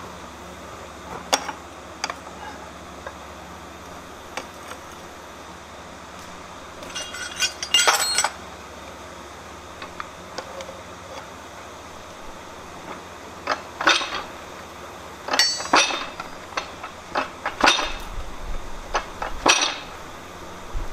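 Sharp metallic clinks and strikes of steel on steel as a hot bar is set on a fly press bed and the press drives a punch into it. The strikes come about every two seconds in the second half, over a steady low hum.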